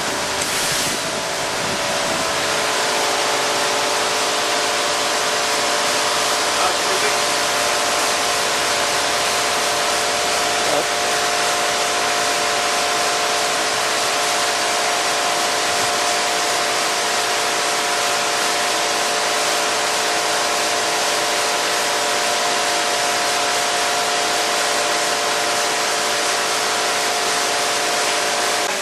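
Mattison hydraulic surface grinder running: a steady machine hum with several fixed tones over an even hiss, unchanging throughout.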